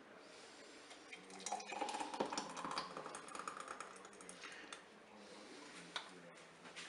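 A kitchen utensil clicking and scraping against a glass jam jar as hot jam is scooped in: a few seconds of quick, faint clicks and scrapes, then one sharp tap near the end.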